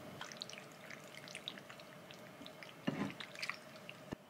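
Thick creamy sauce poured over wide flat udon noodles in a ceramic bowl, then chopsticks mixing it in, giving wet drips and squelches with light clicks against the bowl. The loudest clatter comes about three seconds in, and a sharp click comes near the end.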